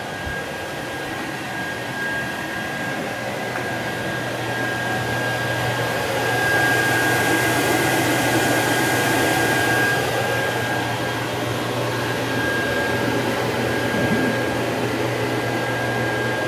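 1937 Electrolux Model 30 canister vacuum cleaner running steadily, a rushing motor noise with a thin high whine and a low hum. It grows louder for a few seconds in the middle.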